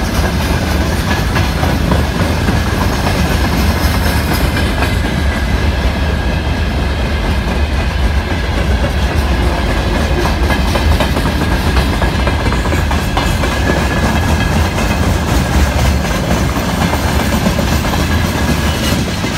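Freight train wagons rolling past close by: a steady, loud rumble of wheels on rail with rapid clickety-clack over the rail joints.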